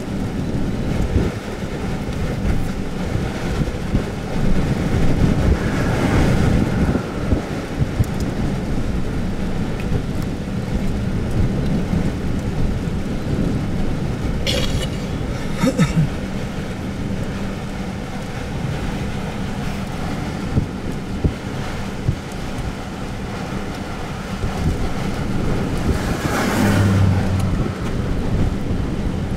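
Strong thunderstorm inflow wind buffeting the microphone and vehicle: a loud, steady rumbling roar with louder gusts about six seconds in, around fifteen seconds in and near the end, over a steady low hum.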